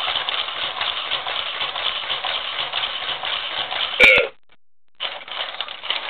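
WowWee Robosapien V1 toy robot's gear motors whirring as it moves its arms and body. About four seconds in there is a click and a short voice-like grunt from the robot, the whirring stops, and it starts again nearly a second later.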